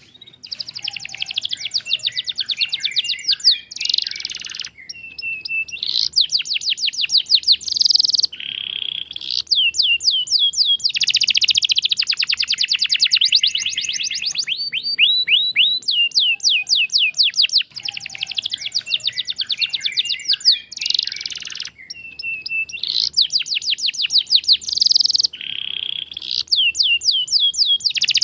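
Male domestic canary singing a long, fast trilled song: rapid runs of repeated notes in phrases that switch every second or two, with only brief pauses between them.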